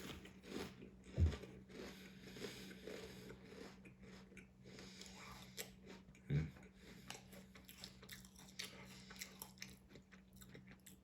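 A person biting and crunching potato chips and chewing them close to the microphone, with a dull thump about a second in and another about six seconds in.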